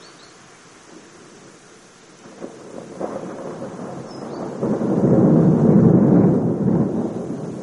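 Rolling thunder: a low rumble that swells from about two seconds in, is loudest around five to six seconds, then dies away.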